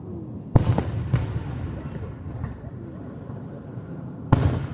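Aerial fireworks shells bursting: two loud booms, one about half a second in and another near the end, each followed by a rumbling echo that fades over about a second.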